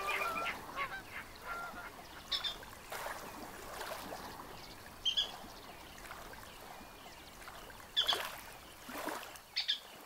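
Wild birds calling: a few short, harsh calls a few seconds apart, over a faint steady hiss, with the tail of music dying away in the first second.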